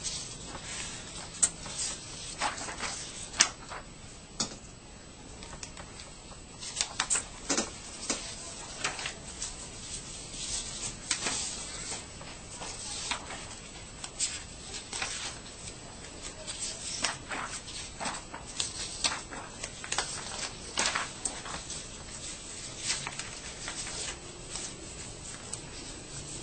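Sheets of drawing paper rustling and crackling as a stack is handled, a run of irregular short, crisp rustles and clicks.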